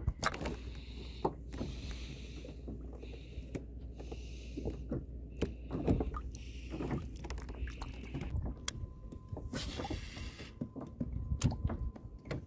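Water sloshing and splashing, with scattered knocks on a kayak hull, as a snook is released over the side by hand. A faint steady high tone comes in about two-thirds of the way through.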